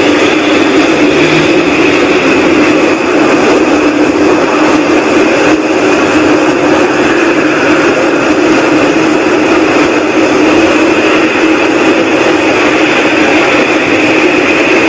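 Unexplained loud, steady whooshing drone in the sky. It holds a low hum and a higher hiss without change, loud enough to drown out road traffic.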